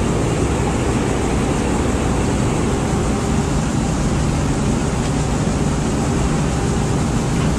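Rice combine harvester running steadily while harvesting, its engine and threshing machinery making an even, continuous mechanical noise as threshed grain is fed into the grain tank.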